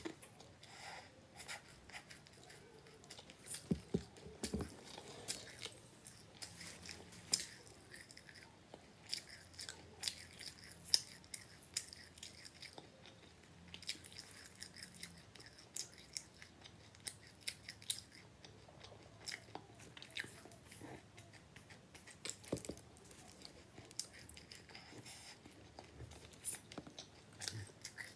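A person chewing, close to the microphone, with many small irregular crackles and clicks throughout.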